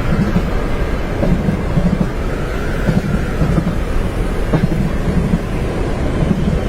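Train running on its tracks, heard from inside a compartment: a steady low rumble with a low hum that swells and fades about once a second, and wind noise over it.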